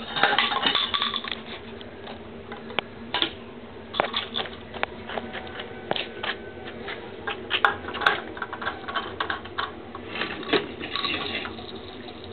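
Irregular light metallic clinks and clicks of a 10-gauge bronze signal cannon being handled and readied for another shot; it is not fired here.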